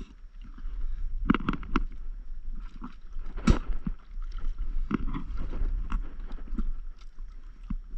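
Small waves slapping against an inflatable paddleboard over a steady low rumble of wind on the microphone, broken by a string of sharp knocks and clicks; the loudest comes about three and a half seconds in.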